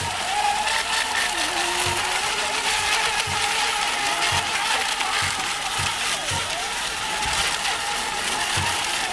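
Mini ECO Expert class electric RC racing boats running on the water: a high motor whine that wavers and glides in pitch as they run and turn, over a steady hiss of spray and wind, with irregular low bumps.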